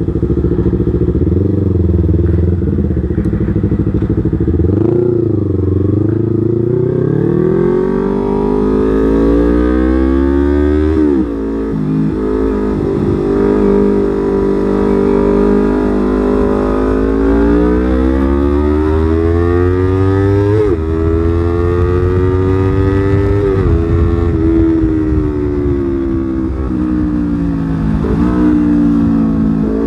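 Yamaha R25 motorcycle's parallel-twin engine running under way, its pitch rising as it accelerates and dropping sharply at the gear changes, about a third of the way in, about two-thirds in and near the end.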